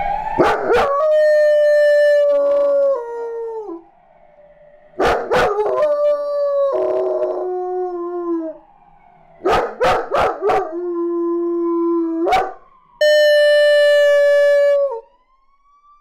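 German Shepherd puppy howling in answer to a police car siren: four long drawn-out howls, each holding one pitch and then dropping at the end. The siren's wail is heard faintly at the start and again near the end.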